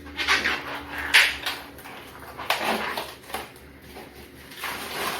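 Rustling and crinkling of a ground beef package being handled, in several short bursts.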